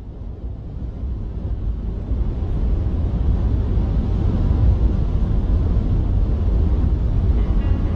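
A deep, noisy rumble that fades in from silence, swells over the first few seconds and then holds steady. Faint musical tones come in near the end.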